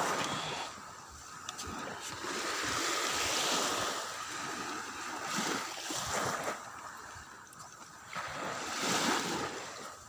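Sea waves washing in several surges, with wind.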